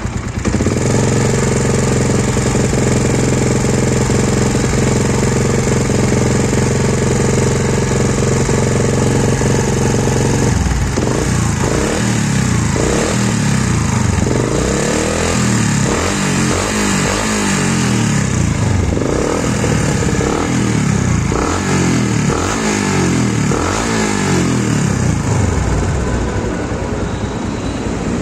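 Yamaha Vixion's single-cylinder four-stroke engine idling steadily, then revved up and down repeatedly from about ten seconds in. The owner calls it a very rough running with a 'klotok klotok' clatter, and does not know the cause.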